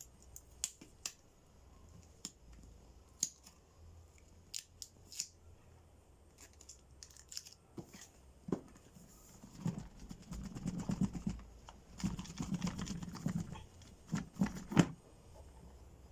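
Hands handling drone packaging: scattered sharp clicks and snaps, then a stretch of rustling and scraping, ending in a few loud clicks.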